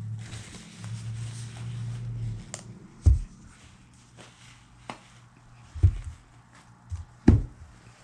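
Dull thumps and knocks, four or five spread unevenly, the loudest about three seconds in and near the end, as paint bottles and supplies are handled and set down on the table. A low hum runs through the first couple of seconds.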